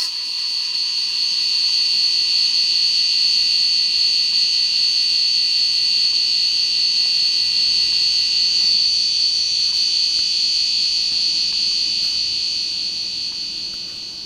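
Electronic sound-effect buzzer sounding one steady high-pitched tone, held unbroken and fading slightly near the end.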